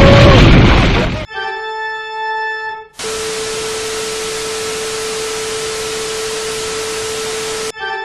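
A sequence of meme sound-effect clips: a loud noisy blast dies away in the first second, then a steady organ-like electronic tone sounds, cut about three seconds in by a steady static hiss with the same tone held under it for nearly five seconds, before the organ-like tone returns near the end.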